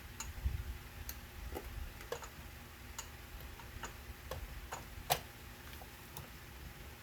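Light clicks and taps of small hard parts being handled during fitting, about a dozen at irregular spacing, the sharpest about five seconds in.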